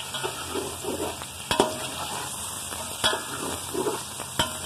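Chicken pieces sizzling in hot oil with fried onions as they are stir-fried (bhuna) in a steel pot. A spoon stirring them knocks against the pot three times.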